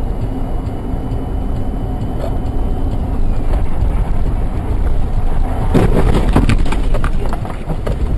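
Car interior rumble from a dash cam: engine and tyres running on a snowy road. About six seconds in comes a louder stretch of knocks and rattling.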